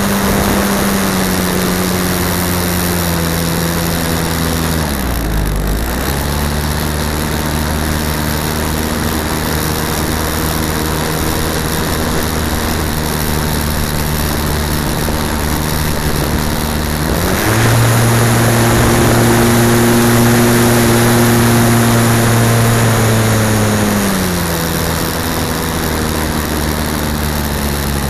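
Airflow rushing over a key-fob camera mounted on a slope-soaring model glider, with a low humming tone whose pitch follows airspeed. The tone dips sharply about five seconds in, then rises and gets louder around 17 seconds before falling again around 24 seconds.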